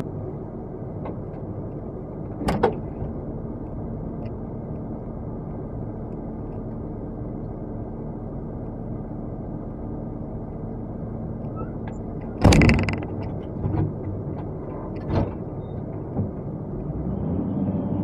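Excavator's diesel engine idling steadily, heard from inside the cab, with several knocks and clunks of the operator moving about the cab, the loudest about twelve and a half seconds in. The engine grows a little louder near the end.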